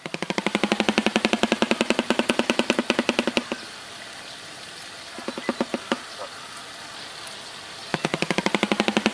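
Shoebill clattering its bill: a rapid, machine-gun-like run of clacks at about ten a second, breaking off after a few seconds into a lull with a few stray clacks, then starting up again near the end.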